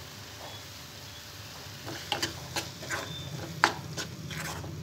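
Spatula stirring spice powders into frying onion-tomato masala in a kadai: a run of scrapes and knocks against the pan begins about two seconds in, over a faint sizzle.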